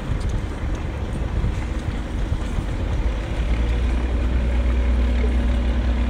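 An engine running with a steady low drone that grows louder and smoother about three seconds in.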